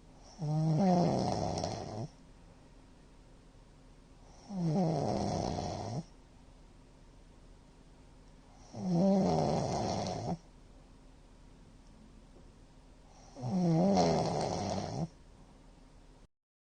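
A middle-aged man snoring heavily: four loud, rattling snores, each about a second and a half long and about four seconds apart, each cutting off sharply. The sleeper puts this heavy snoring down to having drunk too much.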